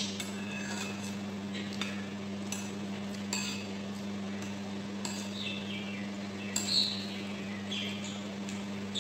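Metal spoon clinking and scraping against a ceramic bowl as food is scooped up, a series of light, irregular strikes with the loudest about two-thirds of the way through. A steady low hum runs underneath.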